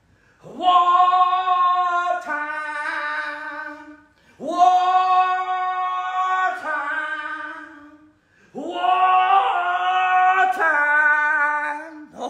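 A wordless singing voice holding three long, high notes, each swooping up into the note and lasting about three seconds, with short breaks between them.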